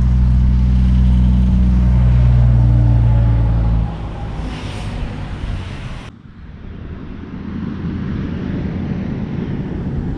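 A low, sustained music drone that stops abruptly about four seconds in, followed after a cut by wind buffeting the microphone outdoors.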